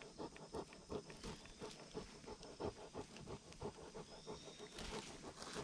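Bernese Mountain Dog panting softly and rhythmically, about three breaths a second.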